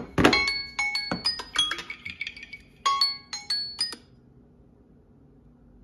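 Samsung phone's timer alert ringing, a quick run of bright chime notes repeating, with a knock near the start. The tune cuts off suddenly about four seconds in as the timer is stopped, leaving only a faint hum.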